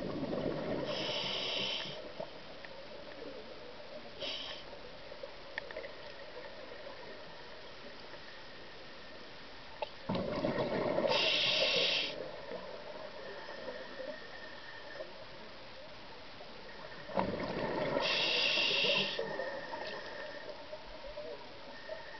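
A scuba diver breathing out through a regulator, heard underwater: three gurgling rushes of exhaust bubbles, each about two seconds long and spaced about seven to eight seconds apart, with a steady low hiss between them.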